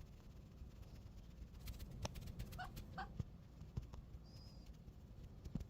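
Tabby kitten giving two short, quiet squeaks close together about halfway through, then a faint high chirp.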